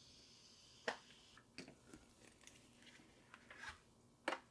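A handful of faint, short plastic clicks and taps of a Cardo Packtalk Edge intercom unit being handled and clipped onto its helmet mount, the sharpest about a second in and near the end.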